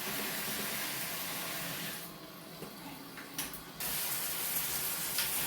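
Water spraying from a newly installed dual shower head, a steady hiss that drops away for a couple of seconds in the middle and then comes back.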